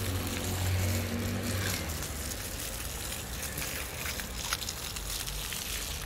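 Ground-level pop-jet fountain: water jets spraying up from floor grates and splashing back onto the wet paving, a steady hiss with scattered splashes. A low hum fades away about two seconds in.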